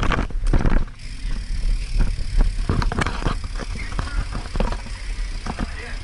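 Wind rumble and scattered rattling knocks on an action camera carried on a BMX bike rolling over pavement, loudest and densest in the first second.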